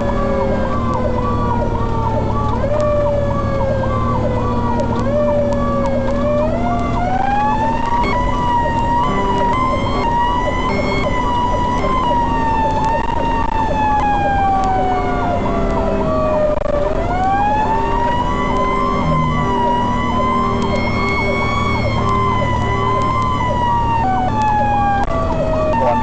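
Fire apparatus siren wailing, heard from inside the cab over the truck's engine drone. The pitch climbs in a second or two and then falls slowly over several seconds, over and over.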